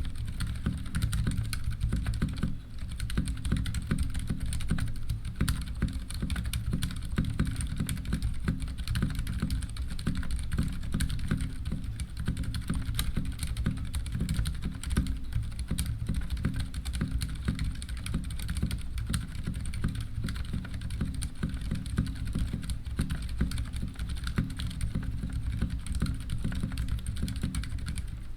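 Steady, fast typing on a Ducky One 2 Mini mechanical keyboard with unlubed Cherry MX Silent switches and PBT keycaps: a dense, unbroken stream of key strokes.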